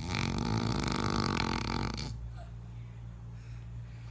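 A person snoring: one long rasping, fluttering snore of about two seconds that starts suddenly, then a pause before the next one begins near the end.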